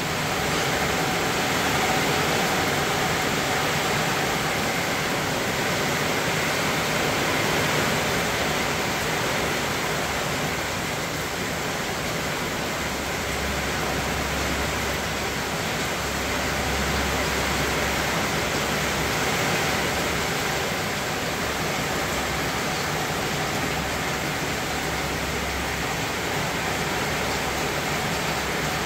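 Steady rush of wind-driven rain and gusting wind from a passing hurricane storm band, with a low rumble that swells and fades around the middle.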